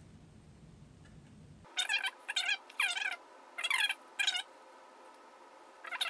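Short animal calls, each falling in pitch, in quick groups of two or three starting about two seconds in.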